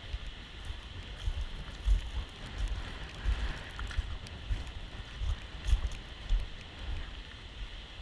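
Steady rushing of the Seljalandsfoss waterfall and its spray, with irregular gusts of wind buffeting the microphone in low rumbles.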